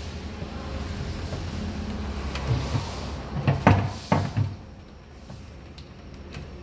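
Knocks and bumps of plastic tubing and fittings being handled at a water purifier's pressure tank under a sink, with a cluster of sharp knocks about three and a half to four seconds in. A steady low hum lies underneath and fades about four and a half seconds in.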